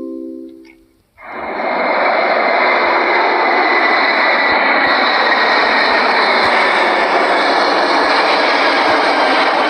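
Jet airliner cabin noise: a steady, loud rush of engine and air noise with a faint whine in it. It starts abruptly about a second in, after the last notes of a chime melody die away.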